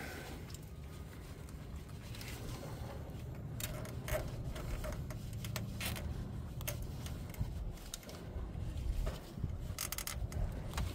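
Faint clicks and scrapes of hands working plastic fuel-line fittings onto an in-line fuel filter, with a quick run of ticks near the end, over a low steady hum.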